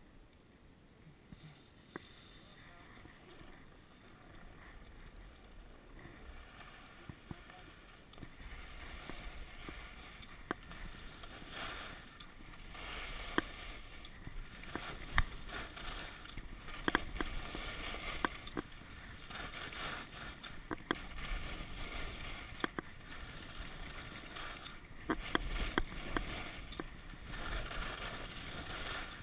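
Skis sliding and scraping over packed snow, with wind rumbling on the camera's microphone, growing louder over the first ten seconds or so and scattered with sharp ticks and scrapes.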